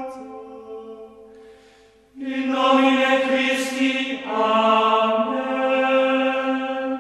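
Music intro of held, chant-like sustained tones with no beat. The tones fade almost to silence about two seconds in, return louder, and change chord about four seconds in.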